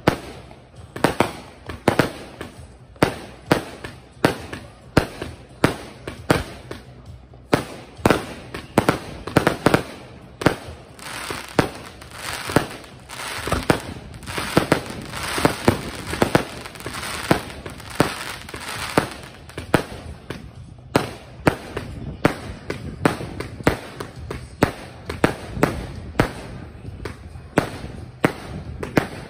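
Consumer firework cakes firing a rapid run of small aerial shells: sharp bangs about two to three a second throughout. A thicker spell of crackling breaks comes in the middle.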